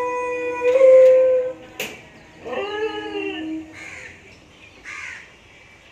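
Animal cries: a long, loud whining cry that steps down in pitch and then holds, a second cry that rises and falls about two and a half seconds in, then two short harsh calls near the end.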